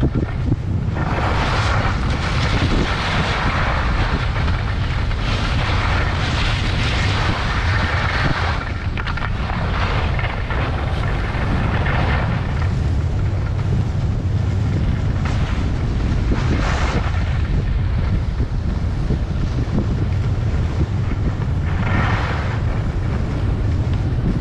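Wind buffeting a GoPro's microphone at skiing speed, a constant low rumble, with the hiss of skis sliding and scraping over packed snow. The hiss swells for several seconds in the first third and again briefly twice later, as the turns dig in.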